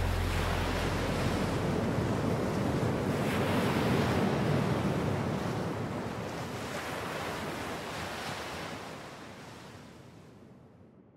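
Ocean surf breaking on a rocky shore, a steady rushing wash that swells in the first few seconds and then fades out near the end.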